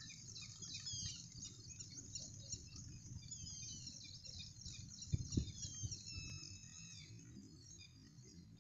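Many small birds chirping and twittering together, a busy chorus of short high calls over a low rumble. Two dull thumps stand out about five seconds in.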